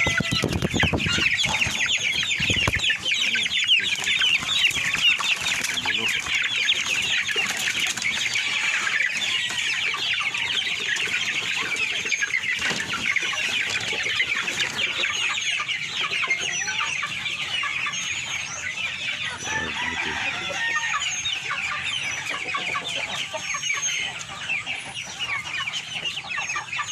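A pen of young chicks peeping: many short, high cheeps overlapping in a dense chorus that thins out somewhat over the second half.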